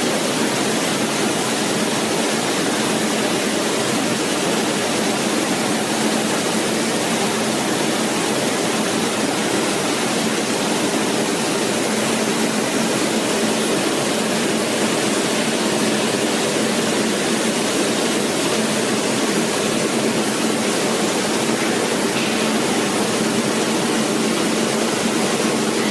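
Bubble-type fruit and vegetable washing machine running: water churning steadily in the tank, with a steady hum from the machine's motor underneath.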